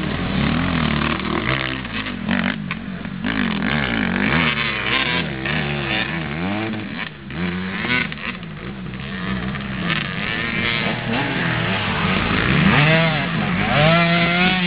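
Motorcycle engines revving up and down over and over, their pitch rising and falling every second or so, with more than one engine heard at once. Near the end one engine revs up sharply.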